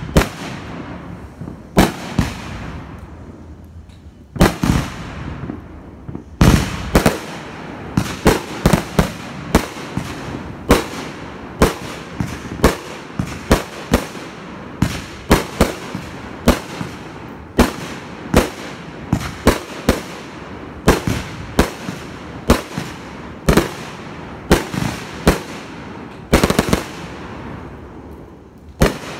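Aerial fireworks bursting overhead. A few spaced bangs come first, then from about six seconds in a steady string of bangs, one to two a second, with crackling between them. The bangs thin out near the end.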